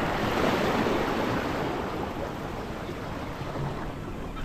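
Sea waves washing, with wind rushing over the microphone, easing off somewhat.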